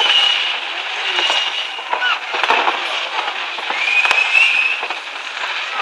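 Aerial fireworks crackling and popping steadily, with a few high whistles over the crackle, one rising about four seconds in.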